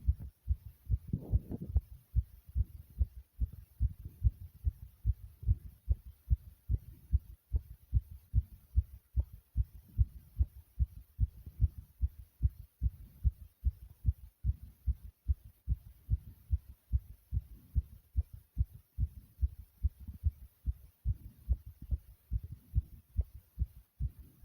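A human heart beating fast: a rapid, regular train of low thumps, racing after exertion. A breath is heard about a second in.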